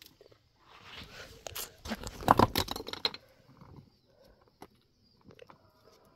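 Loose stones and rubble crunching and clattering for about two seconds, a rush of many small knocks that is heaviest just past the middle, then dies away to a few scattered ticks.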